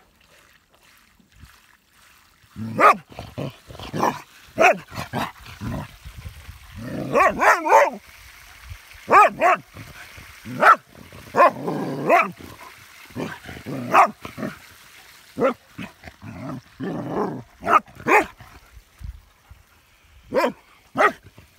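Dog barking in short, irregular barks and yips, starting a couple of seconds in, at a hedgehog curled up into a defensive ball.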